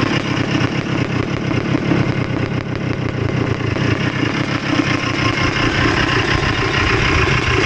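Single-cylinder two-stroke engine of a 2002 Honda CR250 dirt bike running, a steady fast-fluttering engine note.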